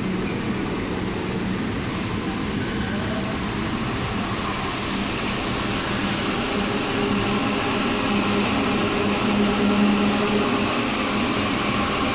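Santiago Metro NS-93 train running at the station platform: a steady hum and rushing noise that grow louder and brighter from about halfway through.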